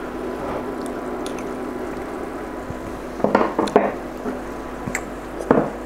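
Steady bubbling hiss of a pan of sauce simmering and a pot of water heating, with a cluster of short clicks and rattles about three seconds in and another brief one near the end as a seasoning shaker is handled.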